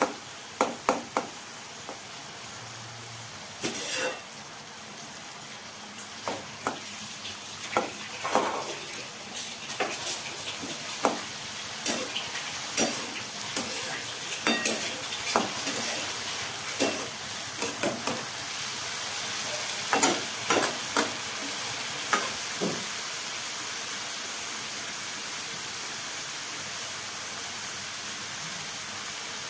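Metal spatula scraping and knocking against a metal kadhai as diced bottle gourd peel is stir-fried, over a steady sizzle of the frying. The stirring stops about three-quarters of the way through, leaving only the sizzle.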